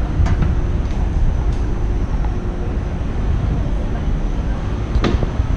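Steady low rumble of city street background noise, with traffic in it.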